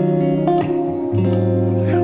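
Background music: an instrumental stretch of a song, guitar over bass notes that change about once a second.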